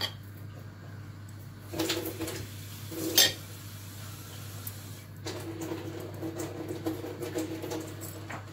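Hand-work noises from filling a pastry triangle with chicken stuffing on a stone counter: clatters and scrapes of stuffing and dough against the counter and plate, with a sharp knock about three seconds in, then a run of small clicks and rustles. A steady low hum lies underneath.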